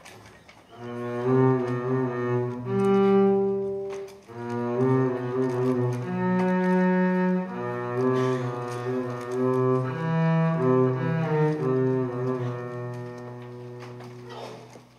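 Solo upright bass played with the bow, a slow line of held notes, each swelling and ringing with rich overtones. The playing breaks off briefly about four seconds in, resumes, and fades away near the end.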